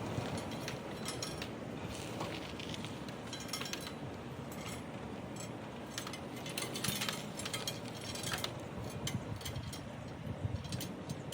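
Scattered light metallic clinks and rattles, as of metal brackets and pins being handled, over a steady low rumble of wind on the microphone.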